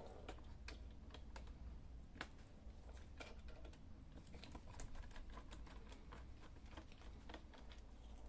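Faint, irregular small clicks and ticks of a small screwdriver turning out a laptop display-bezel screw, a few clicks a second.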